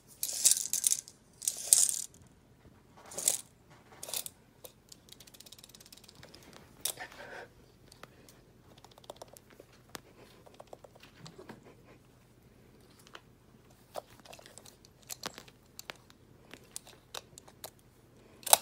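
Metal tape measure rattling and scraping in short bursts as a ferret tugs at its blade on carpet, with scattered light clicks between. The loudest bursts come in the first two seconds.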